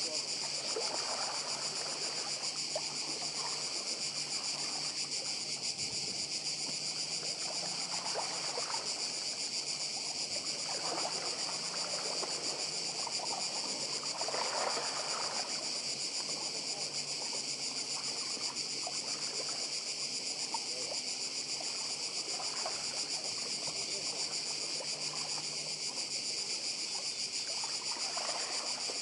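Cicadas singing in a steady, high, continuous chorus, over small waves lapping and washing against the stones of a pebble shore now and then, the biggest wash about halfway through.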